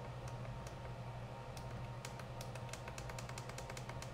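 Buttons on a FrSky Taranis X9D Plus radio transmitter clicking as they are pressed in quick, uneven succession, a few clicks a second, over a steady low hum.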